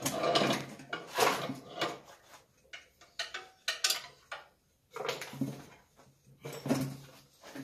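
Adjustable wrench clanking and scraping on the centre bolt of a flywheel puller, turned in short repeated strokes about once a second, working a stubborn flywheel off a 1970s Ski-Doo Rotax snowmobile engine's crankshaft.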